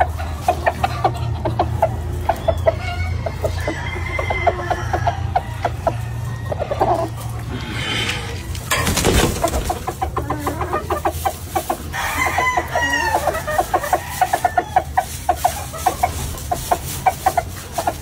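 Gamefowl chickens clucking in quick, repeated notes, with a rooster crowing partway through.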